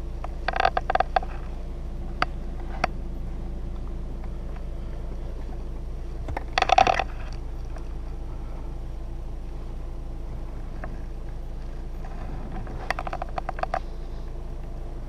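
Mini Cooper S F56 engine idling as a steady low hum inside the cabin. Three short bursts of rapid clicking break over it: about half a second in, about six and a half seconds in, and near the end.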